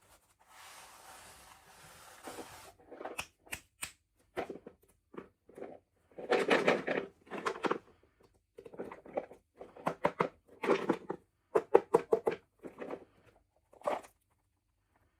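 Toy packaging being handled and opened: a soft hiss, then irregular bursts of crinkling and rustling with sharp clicks and taps.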